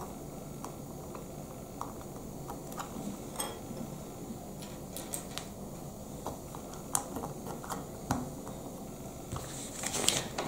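Small plastic Lego pieces being handled and pressed onto a build: scattered sharp clicks and taps, with a denser run of clicks near the end.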